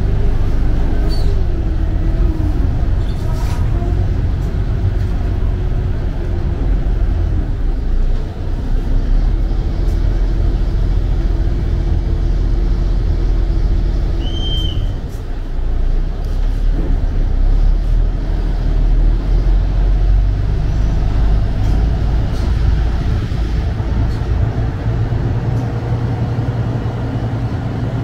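Chao Phraya express boat's engine running steadily with a deep rumble, over water rushing past the hull. A short high tone sounds once about halfway through.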